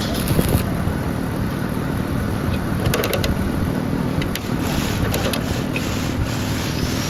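Grass chopper machine running steadily, with a few faint clicks about three seconds in.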